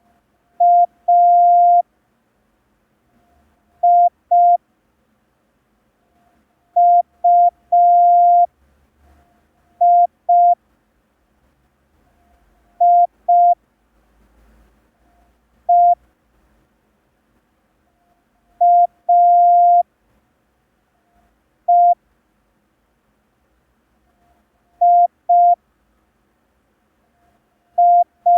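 Morse code practice tone sent slowly: single letters as short and long beeps of one steady pitch, one letter every two to three seconds, spelling A, I, U, I, I, E, A, E, I and U. These are letters from the first practice set (E, I, S, H, T, M, O, A, U, V).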